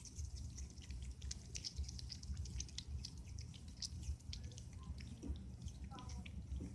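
Young Virginia opossum chewing watermelon: a steady run of quick, wet little chewing clicks.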